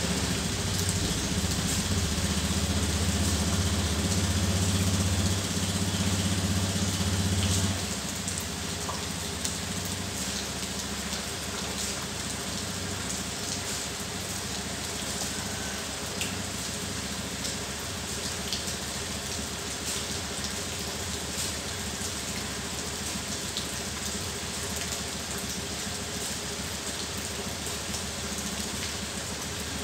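Honda scooter's engine running with a steady low hum that drops off abruptly about eight seconds in. A steady hiss of rain continues throughout.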